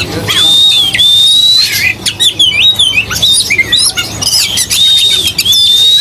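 Caged songbirds singing: repeated long, high whistled notes, some held level and others gliding up and down, mixed with quick chirps.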